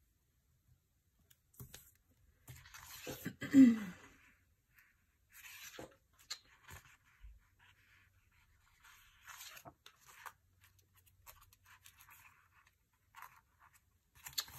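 Sticker sheets rustling and stickers being peeled from their backing and pressed onto planner pages, in scattered scratchy bursts. About three and a half seconds in, a short, louder sound falling in pitch stands out.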